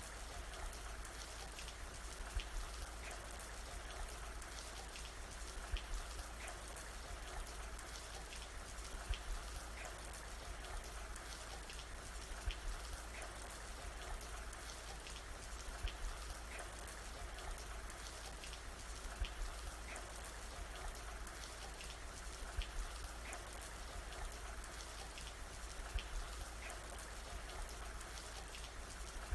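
Steady rain falling, a continuous hiss of drops striking a surface, with louder single drops every few seconds.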